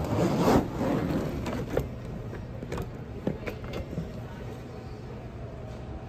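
Hard-shell plastic suitcase being set down into a chrome wire luggage cart: a clatter of case and metal rods knocking together in the first two seconds, then a few lighter knocks as it settles, over a steady low hum.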